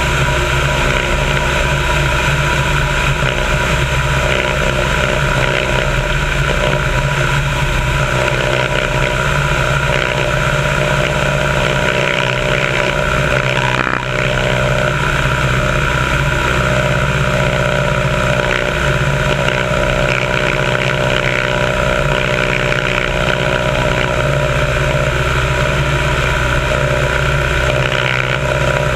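Biplane's engine and propeller running steadily in flight, with a strong rush of wind over the wing-mounted microphone.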